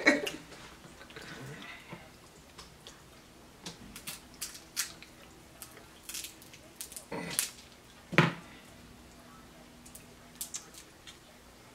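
Snow crab legs and shrimp shells being cracked and picked apart by hand: quiet, scattered clicks and crackles, with two louder short sounds about seven and eight seconds in.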